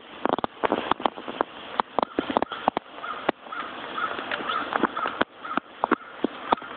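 Black house cat making short, sharp barking calls at birds outside the window, in an irregular run, with a row of quicker higher chirps in the middle.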